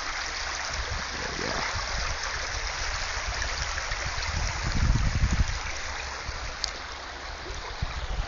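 Shallow river water rushing steadily over and around stepping stones and rocks.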